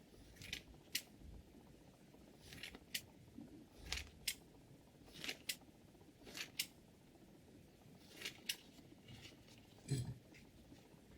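Scissors snipping: a run of short, sharp snips, mostly in quick pairs, about seven over several seconds, the loudest near the end.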